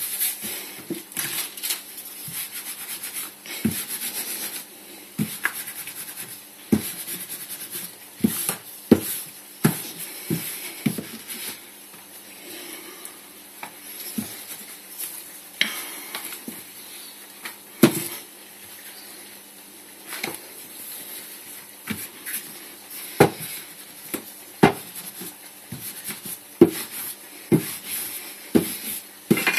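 Pastry dough being worked by hand on a floured wooden board and rolled out with a wooden rolling pin. Irregular knocks and soft thuds come as the pin and hands press and move over the dough and board.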